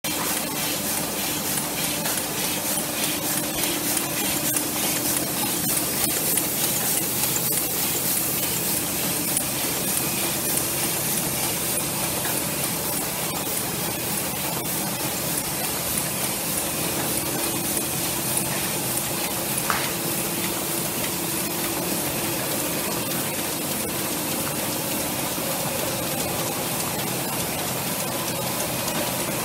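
Heidelberg Speedmaster SM 74 five-colour sheetfed offset press running: a steady, dense mechanical whir with air hiss and a fast, fine clatter.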